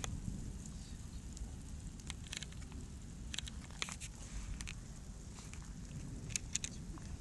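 Hailstorm: hailstones pelting a grassy yard, with scattered sharp clicks of individual stones striking over a steady low rumble.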